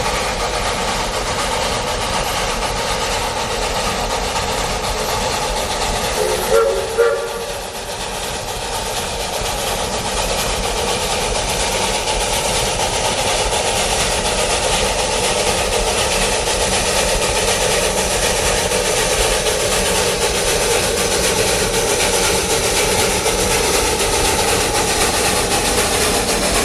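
Narrow-gauge steam train running with a steady rumble and hiss. About six and a half seconds in, the locomotive's steam whistle gives two short toots.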